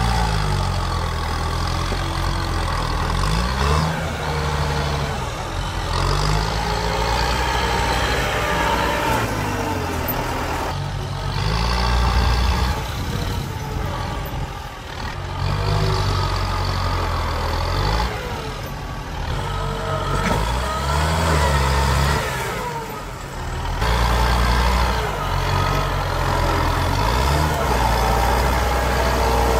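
Kubota M8540 tractor's four-cylinder turbo diesel running under load as it pushes earth with a front dozer blade, the engine note rising and falling again and again as it labours and eases.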